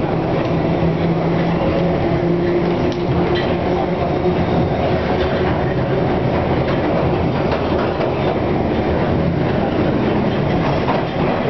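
London Underground 1967 Tube Stock train running at speed through a station without stopping, heard from inside the car: a steady rumble of wheels on rail with a low hum that fades after the first few seconds, and a few sharp clicks near the end.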